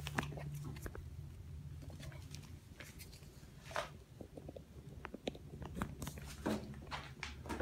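Footsteps and phone-handling knocks on a concrete floor: scattered scuffs and clicks, a few louder ones about four seconds in and near the end, over a steady low hum.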